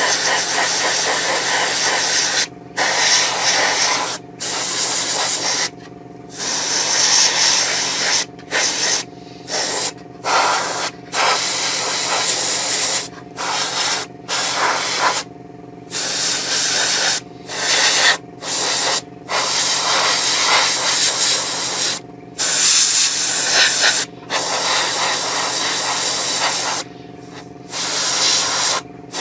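Airbrush spraying a light mist coat of grey primer at low air pressure: a hiss in repeated bursts of one to three seconds as the trigger is pressed and let go, with short gaps between. A steady low hum runs underneath.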